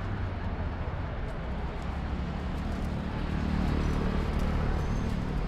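Road traffic noise: a steady low vehicle engine drone with road rumble, swelling louder about three seconds in.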